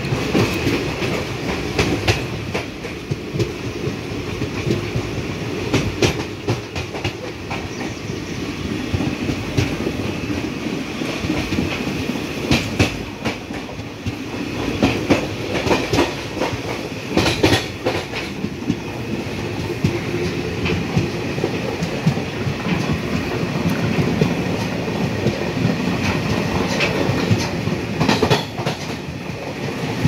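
Moving train heard from a coach window: steady rumble of wheels on track, with irregular clatter as the wheels pass over rail joints.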